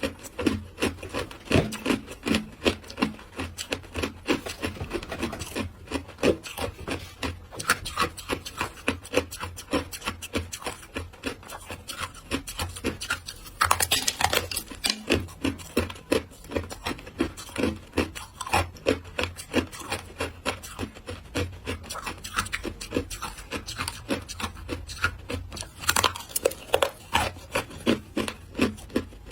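Ice being chewed close to the microphone: a steady run of crisp crunches, about two to three a second, with a louder, longer crunch about halfway through and another near the end.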